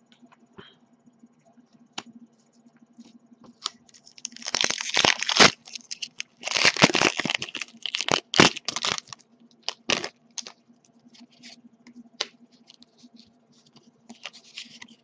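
Foil wrapper of a Pokémon XY booster pack being torn open and crinkled, in two long rustling spells and a shorter one near the end, with light taps and clicks of trading cards being handled between.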